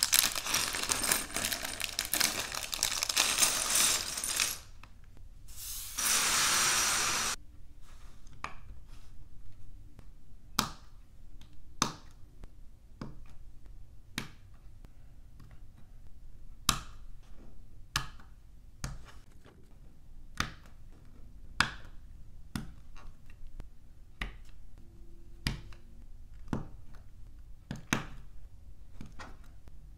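A plastic bag of LEGO pieces crinkling while loose bricks clatter onto a wooden table, with a second burst of rustling about six seconds in. After that, single sharp clicks about once a second as LEGO bricks are snapped onto a plate.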